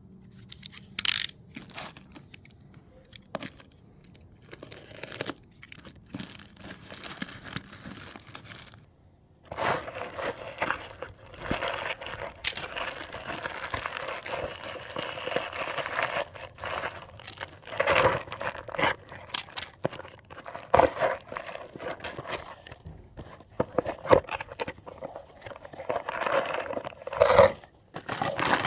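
Packaging being opened and handled by hand. There are scattered crinkles and clicks at first. From about ten seconds in comes a continuous run of tearing and rustling broken by sharp snaps.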